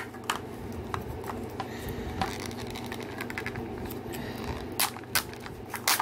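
Hands peeling the sticker wrap off a 5 Surprise Mini Brands plastic capsule ball and handling its plastic shell: scattered crinkles, taps and clicks over a steady low hum.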